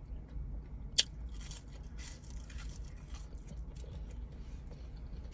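Faint close-up chewing of McDonald's french fries, with a sharp click about a second in, over a steady low hum.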